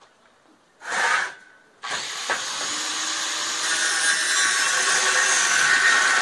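A handheld power tool gives a short burst about a second in, then starts up again and runs steadily and loudly.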